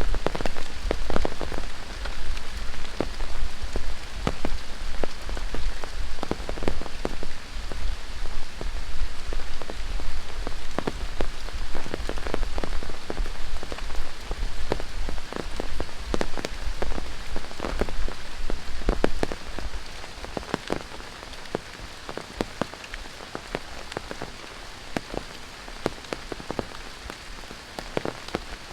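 Rain falling steadily, with many single drops striking close by as sharp patters over the hiss of the downpour. About two-thirds of the way through, the low rumble under it fades and the rain sounds lighter and quieter.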